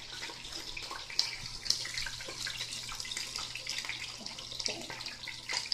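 Chicken pieces frying in hot oil: a steady sizzle with scattered pops and crackles.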